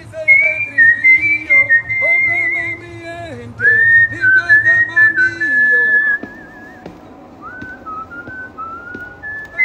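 Someone whistling a wavering tune over music with a pulsing bass line. The music drops away about six seconds in and the whistling carries on more softly.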